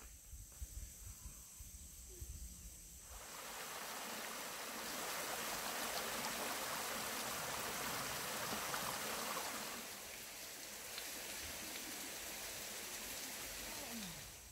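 Small rocky mountain stream tumbling over stones in a little cascade: a steady, even rush of water that comes in about three seconds in and gets a little softer after about ten seconds.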